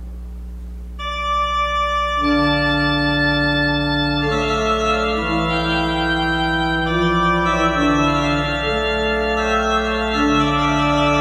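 Church organ starting to play about a second in: a single held high note, then slow sustained chords whose inner notes move step by step. A steady low electrical hum sits underneath throughout.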